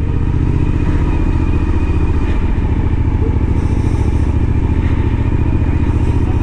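Motorcycle engine running steadily at low, even revs while the bike rolls along.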